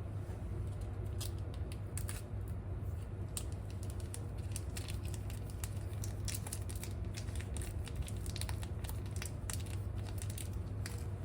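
Kitchen range hood fan humming steadily, with many quick, irregular crackles and clicks over the hum.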